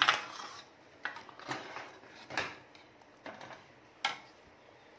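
Steel ladle knocking and scraping against a metal kadai as thick, simmering chickpea curry is stirred: about six short clinks, roughly a second apart.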